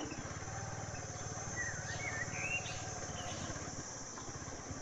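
Motorcycle engine running steadily at low speed, with insects droning at a steady high pitch in the background and a bird's short warbling call about two seconds in.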